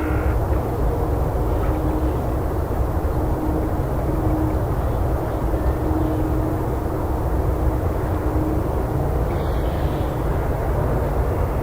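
Forest ambience recording dominated by a steady, loud low rumble, with a faint steady hum running through it.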